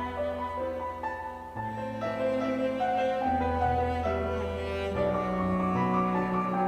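Slow instrumental music: long held notes move over sustained bass notes that change every second or two.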